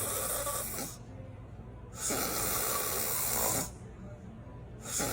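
A woman snoring in her sleep: long, noisy snores of about a second and a half to two seconds each, coming about every three seconds with quieter breaths between.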